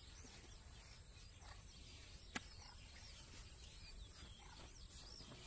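Near silence outdoors with faint, scattered bird chirps and one sharp click about two and a half seconds in.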